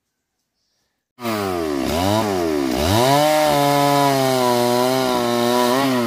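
Two-stroke chainsaw engine running at high revs, cutting in suddenly about a second in. Its pitch dips and climbs back twice, then holds high and steady.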